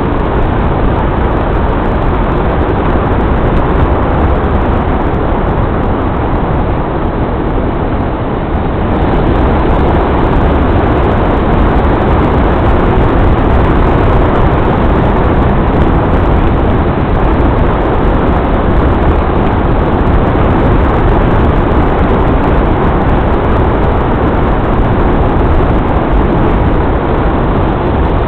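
Steady, loud rumbling road noise of a vehicle driving, with no separate events, growing a little louder about nine seconds in.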